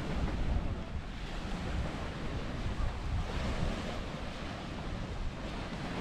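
Wind buffeting the microphone: a steady, gusting low rumble with a broad rush on top.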